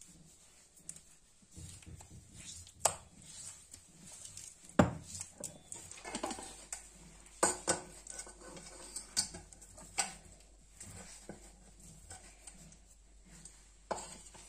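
Hand scraping wet ground tomato paste off a rough stone grinding slab, with a few scattered sharp knocks and clinks; the loudest knock comes about five seconds in.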